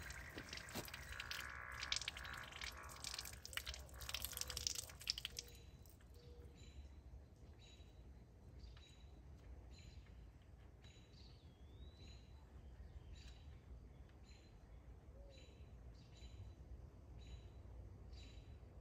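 Liquid ballast and air hissing and spraying from a tractor tire's open valve stem, with small metal clicks, while a new valve core housing is threaded in; the hiss stops about five and a half seconds in. After that it is quiet apart from a bird chirping about once a second, with one rising-and-falling whistle in the middle.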